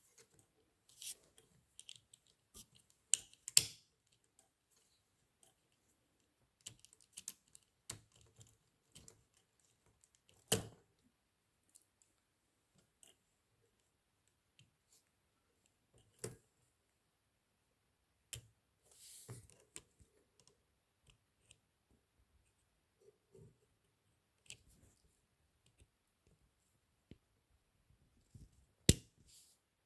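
Scattered clicks and taps of small metal typewriter parts and tools being handled on the mechanism of an Olympia SM7, with a sharper knock about ten seconds in and another near the end, and a short rustle in between.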